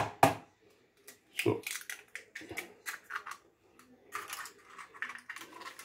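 Raw eggs being cracked against the rim of a plastic bowl and their shells broken open: two sharp knocks right at the start, then a run of small cracks and taps of shell.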